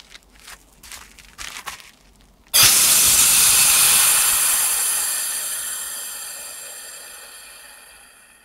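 Small pressure-fed rocket engine burning ethanol with gaseous oxygen: a few short sputtering spurts, then about two and a half seconds in a sudden loud rushing hiss with a thin high whistle, which fades away slowly over the next six seconds.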